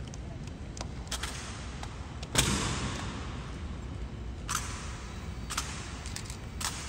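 Honor guards' rifle drill with M1 Garand rifles: a series of sharp cracks about a second apart as hands slap and catch the rifles. The loudest comes about two and a half seconds in and echoes off the stone walls of the hall.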